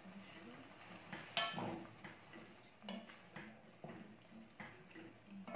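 Wooden spoon stirring a thick liver sauce in a metal pot, knocking against the pot now and then, the loudest knock about a second and a half in.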